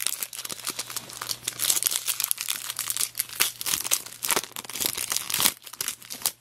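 Foil wrapper of a 2002 Bowman baseball card pack crinkling and tearing as it is pulled open by hand: a dense, irregular crackle that stops just before the end.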